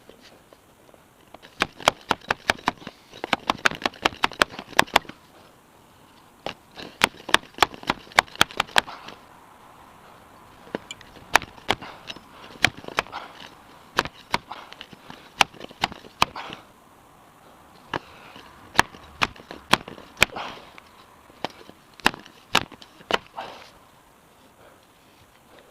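Repeated sharp knocks of a bicycle fork, its steerer sleeved with PVC pipe, being banged down onto concrete to drive the crown race onto the fork crown. The knocks come in four bursts of about three to four strikes a second, with short pauses between them.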